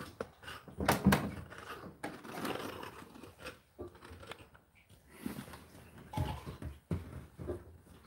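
Clunks and knocks of an Indesit condenser tumble dryer's door and laundry being handled, the loudest about a second in, with rustling of clothes in between; the dryer is not running.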